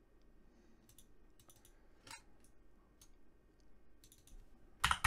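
Faint, scattered clicks of a computer mouse and keyboard as a value is changed in CAD software, with a louder cluster of taps near the end.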